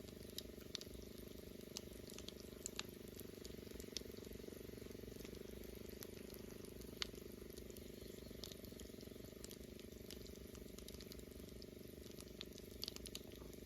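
Faint sizzling with scattered small ticks from a Jiffy Pop foil pan heating on a kerosene heater, over a steady low hum. The oil is heating but no kernels are popping yet.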